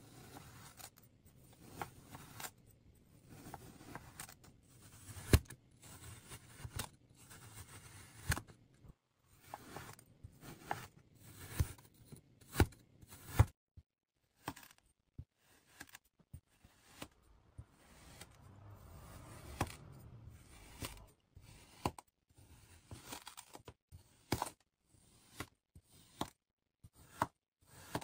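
Kinetic sand being cut and squished: soft crunching and scraping as a blade slices through the packed sand, with sharp clicks scattered throughout, the loudest a little after five seconds and around twelve to thirteen seconds.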